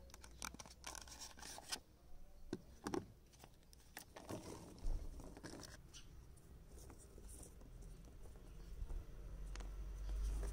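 Faint clicks, taps and scrapes of hands handling craft things: a textile ink pad being taken out of its plastic packaging, and letter stamps picked from a pile on a wooden table and pressed onto a cotton tote bag. The clicks come thickest in the first half; a low rumble comes in about halfway.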